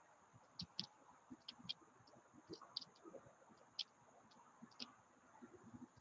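Faint, irregular clicks and taps, about a dozen scattered over a few seconds, from birds pecking at seed on the feeder platform close to the microphone, over a faint steady high-pitched hum.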